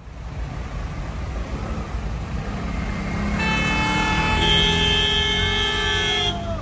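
Street traffic in a jam, engines running, then vehicle horns honking: one held horn starts about halfway through and a second, lower horn joins it about a second later, both stopping together just before the end.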